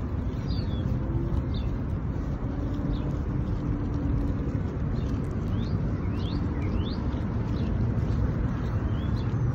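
Outdoor background of steady low rumble, with small birds chirping now and then: a few short gliding chirps, most of them in the middle.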